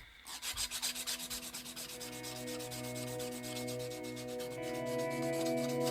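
A narrow strip of 400-grit wet sandpaper rubbed quickly back and forth over a hand-made blind-eye salmon fly hook for its final sanding, several strokes a second. Steady tones sound underneath and grow louder in the second half.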